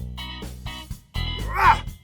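Background music: short plucked notes in an even, bouncy rhythm, with a brief voice-like cry near the end.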